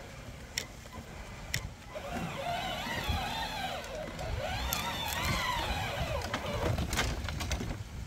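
Drive motors of a remote-control beach fishing cart whining as it drives, the pitch rising and falling as it speeds up and slows down, with a few sharp clicks in the first two seconds.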